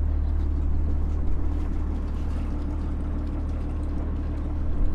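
Trawler's inboard diesel engine idling with a low, steady drone.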